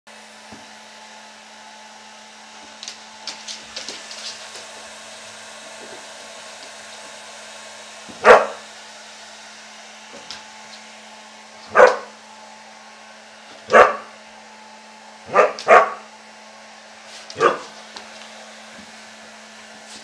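Siberian husky barking at a running hair dryer: six short, loud barks, two of them in quick succession, over the dryer's steady whir.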